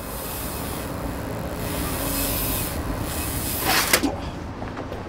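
Street traffic noise, with a car passing close by in a short, loud rush about four seconds in.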